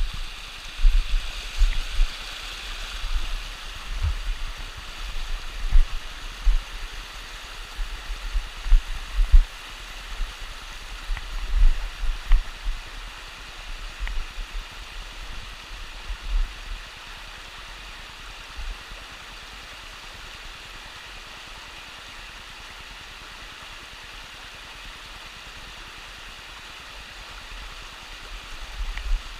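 Mountain stream running over rocks, a steady hiss of rushing water. Irregular low rumbles and bumps on the microphone through roughly the first half, then only the water.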